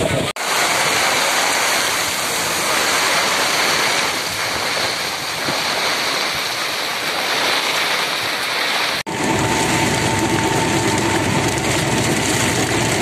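Heavy rain pouring in a steady hiss. About nine seconds in, the sound breaks off abruptly and comes back as a fuller, lower rush with a faint steady hum.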